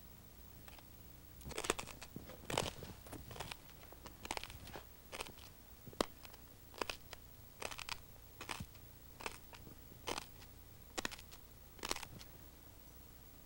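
A man chewing a shard of broken light bulb glass in his mouth: sharp, irregular crunches, one or two a second, over a low steady hum.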